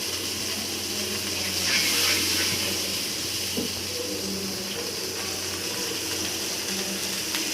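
Chopped onion and garlic cooking in oil with added water in a pan: a steady sizzling hiss that swells briefly about two seconds in.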